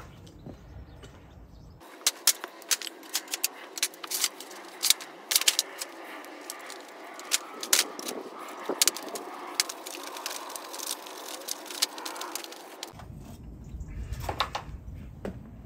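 Many sharp clicks and crackles with metallic clinks as a freshly poured Petrobond sand mould is opened and the hot casting is worked out of the sand with tongs.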